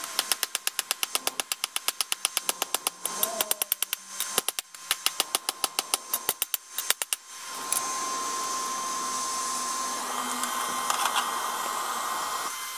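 Hand hammer striking red-hot 5160 high-carbon spring steel on a steel anvil, quick ringing blows at about five a second with two short breaks, as the blade tip is drawn out while the steel is still bright. The hammering stops about seven seconds in, giving way to the steady rush of the anthracite coal forge as the blade goes back in to reheat.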